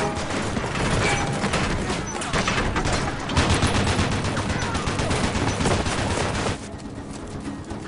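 Rapid, sustained gunfire from a hand-cranked Gatling gun, mixed with other shots, in a film battle soundtrack. The firing stops about six and a half seconds in.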